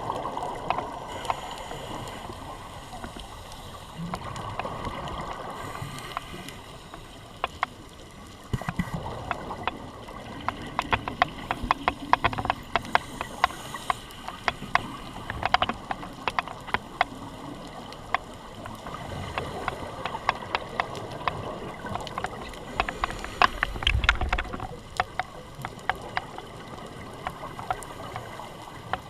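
Underwater sound on a scuba dive: a steady hiss dotted with many sharp, irregular clicks and crackles, with low rushing rumbles near the start of the second third and again about three-quarters through.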